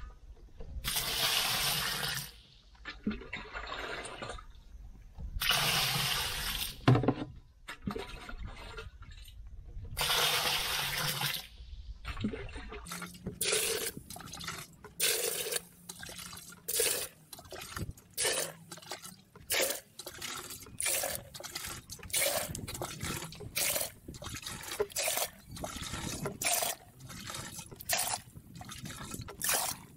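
Water poured from a plastic bucket into a plastic barrel of pigeon manure, splashing into it: three long pours in the first twelve seconds or so, then a quick run of short splashes and sloshes, about two a second, for the rest.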